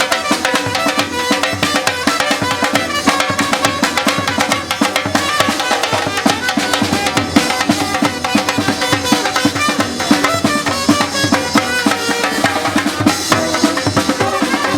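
Music with drums and percussion, a dense steady beat under melodic instruments.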